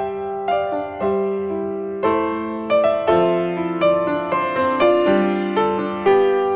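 Piano music: notes and chords struck about twice a second, each ringing and then fading.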